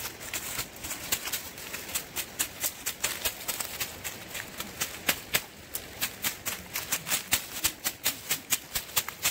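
Footsteps and hands crackling and rustling through dry leaves and brush: a quick, irregular run of sharp crackles, busier in the second half.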